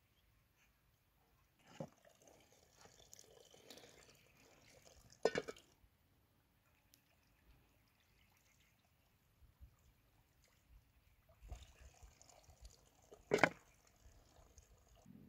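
Water from a hose pouring and splashing as bowls and a metal pot are handled in a water pit, in two spells of splashing. Several sharp clinks of metal dishes knocking together, the loudest near the end.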